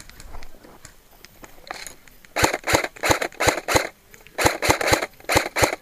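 Airsoft rifle firing single shots in quick succession: about ten sharp cracks in two strings of five, roughly three a second, with a short pause between the strings.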